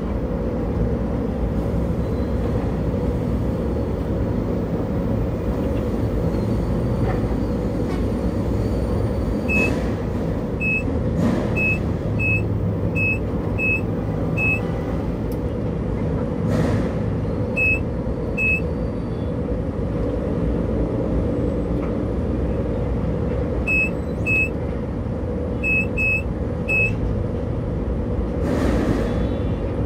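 Steady hum of a working tower crane heard from high on the crane, with a steady tone, over road traffic below. Runs of short high-pitched beeps sound several times through the middle and latter part.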